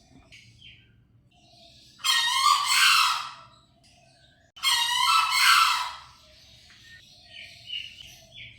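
Green junglefowl (Gallus varius) crowing: two hoarse crows, each about a second and a half long, about two and a half seconds apart.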